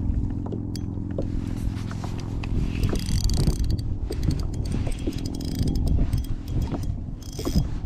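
Wind buffeting the microphone with a low rumble, joined by a steady low mechanical hum for the first few seconds and scattered clicks.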